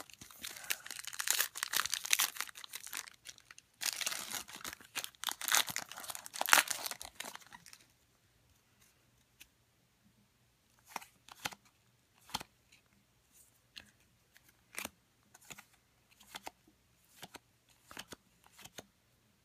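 Plastic wrapper of a Score football card pack being torn open and crinkled, in two bursts over the first eight seconds. After that, scattered short snaps and slides of trading cards being thumbed through one at a time.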